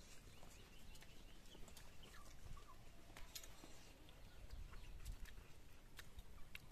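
Faint sounds of someone eating roast chicken by hand: scattered soft clicks and smacks as the meat is pulled apart and bitten, with faint bird chirps in the background.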